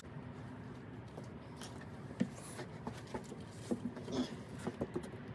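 Faint scattered light clicks and rustling of handling, irregular, with no gunshot.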